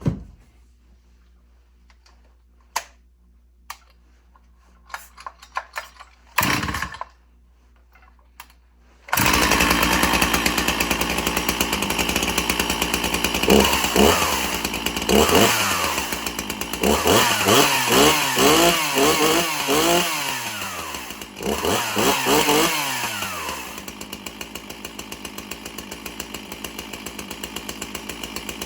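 Two-stroke Stihl chainsaw being started: a few clicks of handling and a short pull, then the engine catches about nine seconds in. It is revved several times, its pitch rising and falling, then settles to a steady idle near the end.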